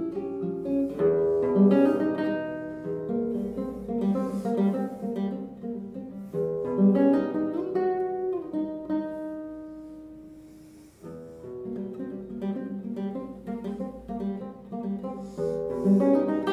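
Classical nylon-string guitar played solo, fingerpicked notes and chords in a slow piece; about ten seconds in a chord is left to ring and die away before the playing picks up again.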